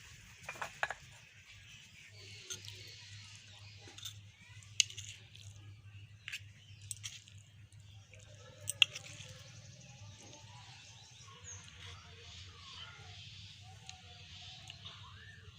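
A dozen scattered sharp clinks, like a spoon tapping a metal dish, loudest about five and nine seconds in. From about eight seconds in there is faint chirping, over a steady low hum.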